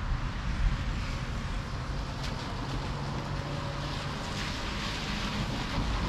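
Steady rain and wind in a thunderstorm, with a car driving along the wet road: a low engine hum and tyre hiss.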